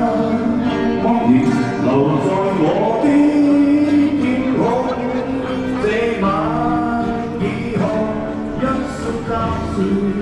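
A street singer singing with instrumental accompaniment, the melody rising and falling over steady sustained chords.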